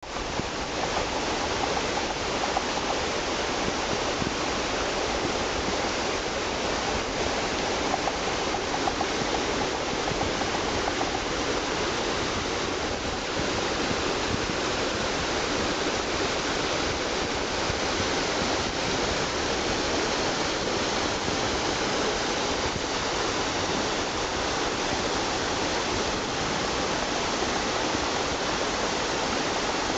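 Shallow rocky stream rushing steadily over stones and small cascades.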